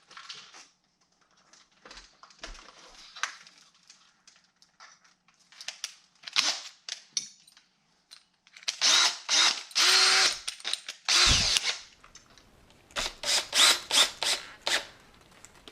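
Power drill running: faint clicks of parts being handled, then one long run of about two and a half seconds with a rising whine, then five or six short trigger blips near the end, as it drives hex screws through a plastic RC truck chassis.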